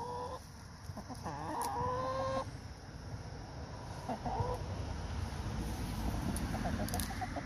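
Hens clucking and calling: a long drawn-out call about a second in, short clucks around four seconds, and a quick run of clucks near the end.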